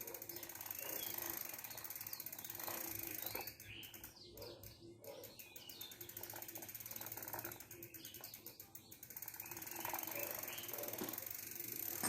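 Bicycle freewheel pawls ratcheting with fast, even clicking as the wheel and cranks are turned, in several stretches with short pauses between them.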